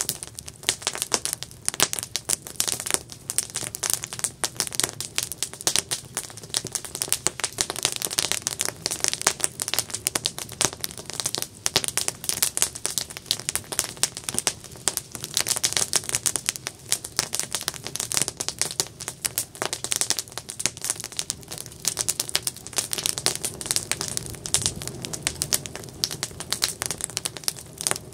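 Wood fire crackling and popping steadily, with dense, irregular snaps throughout.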